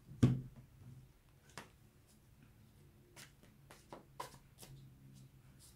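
Tarot cards handled and shuffled by hand: one sharp tap of the deck just after the start, then scattered soft clicks and flicks of cards.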